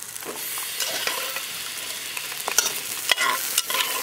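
Boiled chickpeas spooned into hot tomato-spice masala in a metal pan, sizzling steadily. A steel spoon scrapes through the mix and clinks against the pan about three times in the second half.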